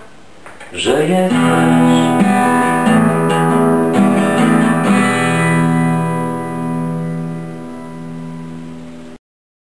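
Acoustic guitar strummed. After a short pause, a few chords ring out, then a last chord is left to ring and slowly fades before the sound cuts off abruptly near the end.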